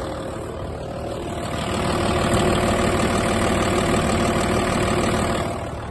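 Audi A6 C5 2.5 TDI V6 diesel engine idling steadily after a fuel injector was replaced, heard from under the wing; it gets louder about a second and a half in and eases slightly near the end.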